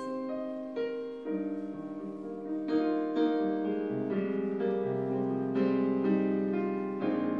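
Piano backing track playing an instrumental interlude between sung lines, with chords and melody notes struck one after another.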